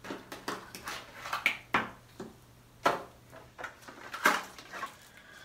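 Gloved hands handling hair-dye bottles and bowls on a counter: a string of irregular clicks, taps and knocks, the loudest about a second and a half, three and four seconds in.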